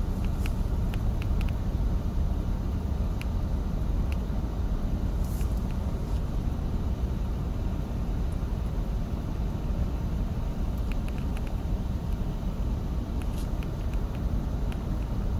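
Freight cars rolling past: a steady low rumble of steel wheels on rail, with scattered short clicks and light squeaks from the running gear.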